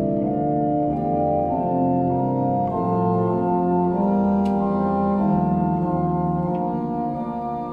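Church organ playing slow, sustained chords that change about once a second.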